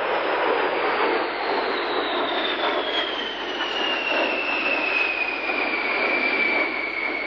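Boeing B-52 Stratofortress's eight jet engines as the bomber flies past and away: a steady rush of jet noise with a high whine that slides down in pitch throughout.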